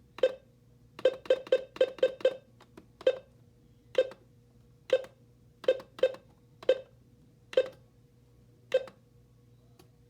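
Short button-press beeps from an AlertWorks EAR10 weather alert radio as its alarm time is keyed in: about fifteen quick beeps at uneven intervals, with a rapid run of six about a second in, over a faint steady hum.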